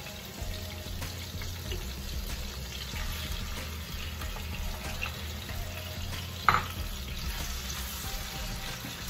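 Home kitchen cooking noise: a steady hiss and low hum, with one sharp knock about six and a half seconds in.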